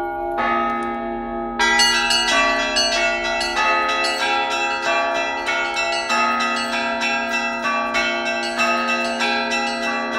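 Church bells of several pitches ringing together: lower bells ring on while higher, smaller bells come in about one and a half seconds in and are struck rapidly, several strikes a second, in a continuous peal.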